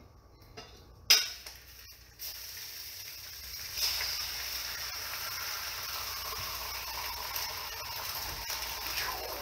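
A sharp click about a second in, then food starts sizzling in a hot frying pan on an electric stove, a steady sizzle that gets a little louder a couple of seconds later.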